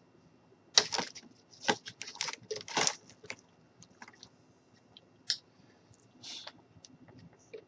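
Handling noise: a quick run of irregular clicks and short rustles in the first few seconds, then only a few scattered ticks and a brief rustle.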